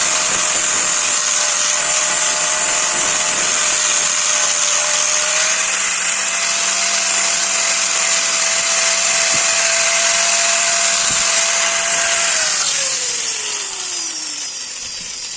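Electric grinder working on steel, its motor running steadily under a loud hiss, then switched off about twelve seconds in, its whine falling as it spins down.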